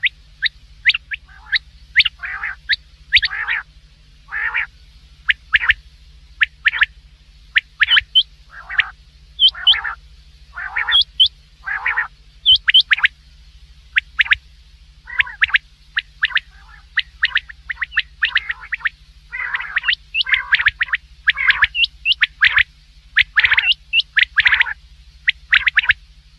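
Quail calling over and over in short, sharp notes, often in quick runs of two or three, with a faint steady hum beneath.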